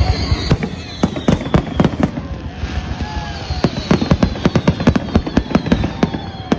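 Aerial fireworks display: shells bursting overhead in a rapid, irregular string of loud bangs and crackles, thickest about three to five seconds in.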